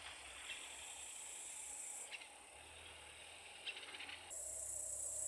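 Faint, steady high-pitched chirring of insects such as crickets or grasshoppers. It changes abruptly about two seconds in and returns louder near the end. A few brief ticks are scattered through it.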